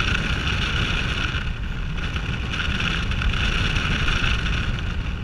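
Steady wind rushing and buffeting over the camera microphone during a tandem parachute descent under an open canopy.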